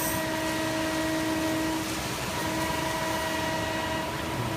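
Hydraulic system of a CNC press brake running with a steady hum and several constant whining tones, which break off briefly about two seconds in. A short hiss comes right at the start.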